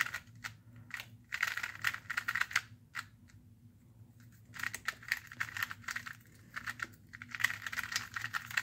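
Angstrom Valk 2 2x2 speedcube being turned quickly in a solve: runs of rapid plastic clicks and clacks as the layers snap round, with a pause of about a second and a half midway.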